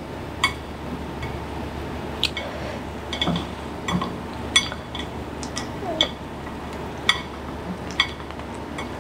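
Light clinks and taps of dishes and utensils at the table, irregular, roughly one a second, over a steady low hum.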